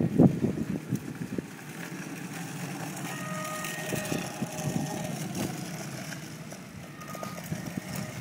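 Small electric 600 W personal rover riding on asphalt: a steady rolling noise of its wheels with a faint intermittent whine, after a few gusts of wind on the microphone at the very start.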